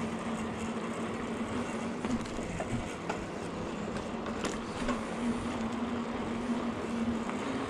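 Steady rolling noise from riding a bicycle on the trail: tyre noise and wind on the microphone, with a constant low hum and a few short clicks and rattles.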